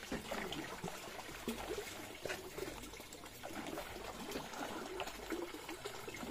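Water trickling steadily, a continuous light run of liquid with no single loud event.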